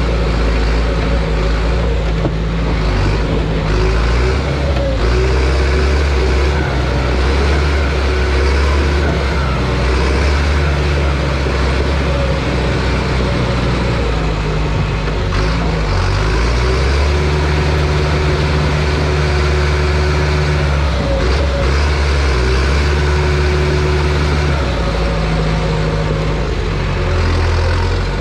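John Deere crawler bulldozer's diesel engine running loud and steady under load while pushing logs. Its low engine note shifts up and down in steps as the load changes, and a thin whine comes and goes.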